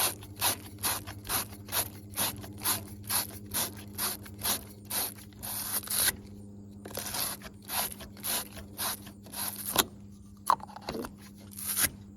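Battery terminal cleaner's wire brush scrubbing corrosion off a lead battery post and cable terminal, in quick back-and-forth scraping strokes about two a second. It pauses briefly about halfway, then scrubs again and ends with a few scattered scrapes.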